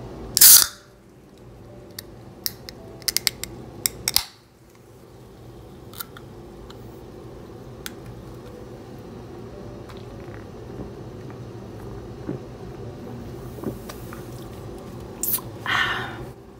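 A can of sparkling water being cracked open and handled: a loud, short pop-and-hiss burst about half a second in, a run of small sharp clicks, and a second hissing burst near the end.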